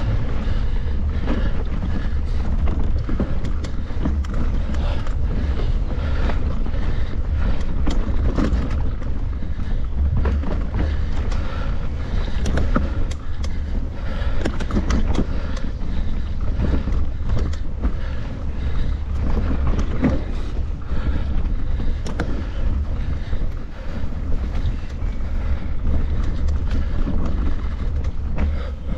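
Wind buffeting a camera microphone on a moving mountain bike, a steady low rumble, with frequent short rattles and knocks from riding over rough trail.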